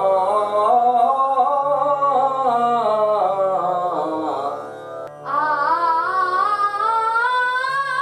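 A man singing sapat taan, quick stepwise runs up and down the scale, over a steady drone. The run breaks off briefly about five seconds in, and a fresh phrase starts from the top with a new onset.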